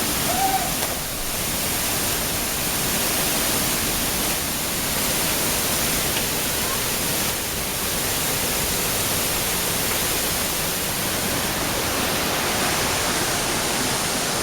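Steady, loud rushing of a waterfall, an even unbroken hiss of falling water.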